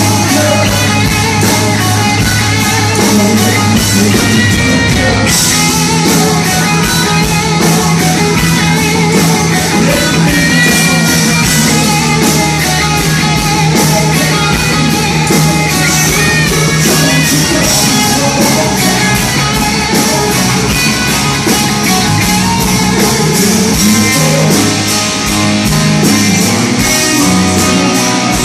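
Rock band playing live and loud: electric guitar over bass and drums keeping a steady beat.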